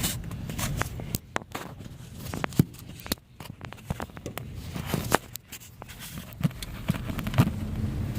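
Irregular clicks and knocks of things being handled, a few of them sharper and louder, with no engine running.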